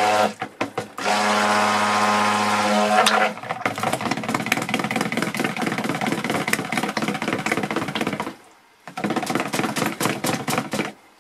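Handheld stick blender running in a plastic bowl of cold-process soap batter, mixing it toward trace. It starts with a steady motor hum for about two seconds, then turns rougher and choppy with rapid clicks as the head is worked around the bowl. It stops briefly about eight seconds in, then runs again.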